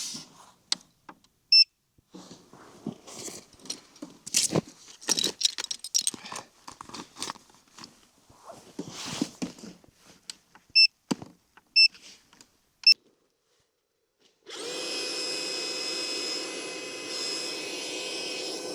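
Rustling and clicking of handling, with four short electronic beeps, then an electric air pump switches on about fourteen seconds in and runs steadily, inflating an air tent.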